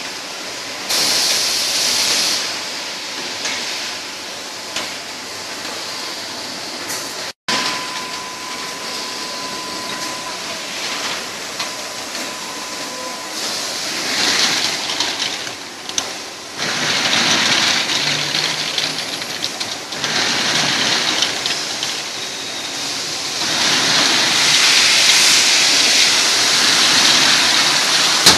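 PET bottle filling line running: continuous machinery noise with recurring bursts of hissing and a thin steady whine.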